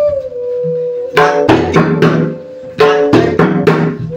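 Pakhawaj played by hand: a ringing pitched note from the treble head fades over the first second, then two short runs of resonant strokes with a brief pause between them, a bar of the bhajani theka being demonstrated.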